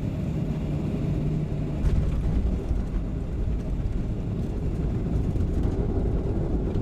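Boeing 737-500 jet noise, a steady low rumble with a hum. About two seconds in there is a sharp knock, and after it the low rumble grows louder.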